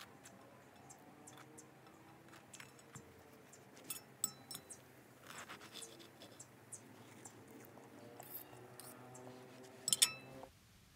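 Table knife and fork scraping on a slice of jam-spread bread and clinking against a ceramic plate, in scattered faint scrapes and clicks, with the sharpest clinks just before the end, along with chewing.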